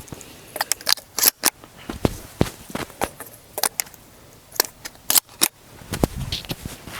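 An irregular run of sharp metallic clicks and clacks from a pump-action shotgun, the Remington 870 Wingmaster 12 gauge, being handled and loaded between shots. No shot is fired.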